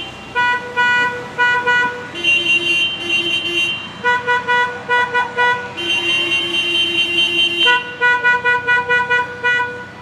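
Two car horns of different pitch taking turns, each sounding a run of short, quick toots for one to two seconds before the other answers, back and forth several times.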